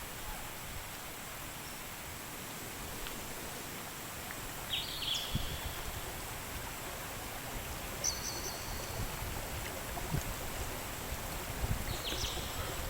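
Steady rush of flowing river water, with birds chirping a few times: short calls about five seconds in, a higher held call about eight seconds in, and more near the end.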